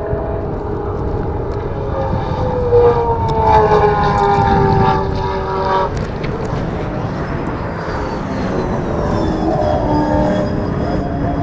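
Brabham BT62 race car's V8 engine at speed, heard from trackside, its pitch sliding up and down. The note is loudest about three to six seconds in, where it drops away suddenly, then rises again near the end.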